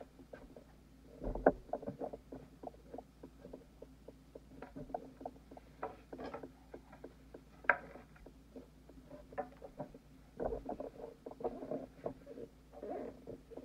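Light, irregular clicks and taps of hands handling a wooden cutting board and pieces of cooked lobster shell, over a faint steady hum.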